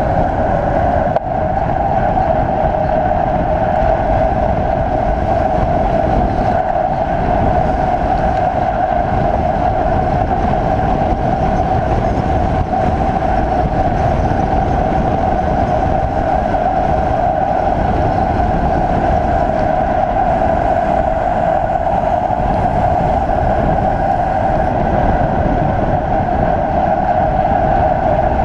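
A mountain bike descending a road at speed: a loud, steady rush of wind and road noise with a constant mid-pitched hum over it.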